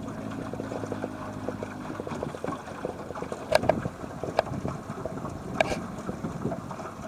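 Water splashing and slapping against the hull of a small boat moving on a lake, with wind on the microphone and three or four sharp knocks. A low steady hum is there at the start and stops about two seconds in.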